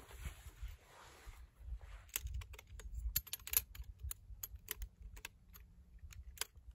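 Shock-corded aluminium pole frame of a Helinox Chair Zero camp chair being unfolded, its pole sections clicking and snapping together. From about two seconds in comes a quick, irregular run of sharp clicks over a low rumble.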